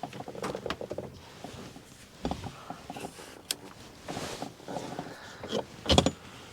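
A cargo trailer camper's door being unlatched and pushed open: a series of clicks, knocks and short rattles from the latch and door, with the loudest knock about six seconds in.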